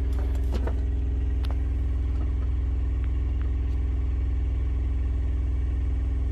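Espar Airtronic D2 diesel bunk heater running with its new fan motor: a steady low hum. A few light clicks come in the first second and a half.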